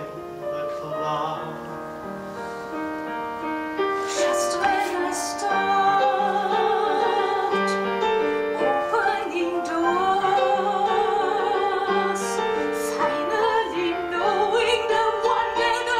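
A woman singing in operatic style with a strong vibrato, to piano accompaniment, growing louder about four seconds in.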